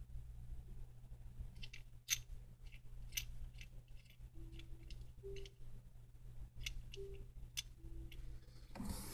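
Faint scattered small metallic clicks from a brass pop-up drain stopper being handled in the fingers, its threaded screw and lock nuts ticking as they are turned, with a few brief faint squeaks over a steady low hum. A louder handling clatter comes right at the end.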